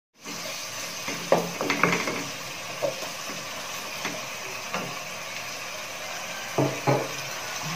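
Wooden spatula scraping and knocking against a non-stick wok as chicken pieces are stirred, in irregular strokes over a steady frying hiss.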